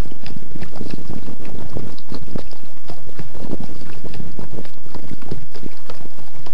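Loud wind buffeting the microphone, with water slapping and knocking irregularly against a sit-on-top kayak.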